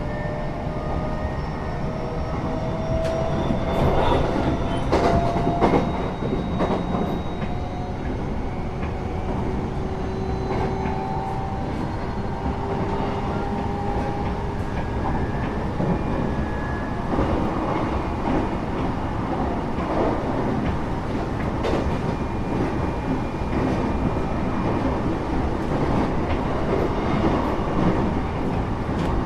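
Passenger train running, heard from inside the carriage: a steady rumble of wheels on rails with a faint whine rising in pitch in the first half as the train picks up speed. Sharp clacks of the wheels over rail joints come in a cluster about four to six seconds in, and a few more later.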